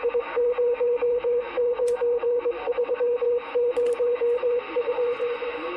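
Morse code (CW) received on a CB radio: a single steady tone keyed rapidly on and off in dots and dashes over a hiss of static.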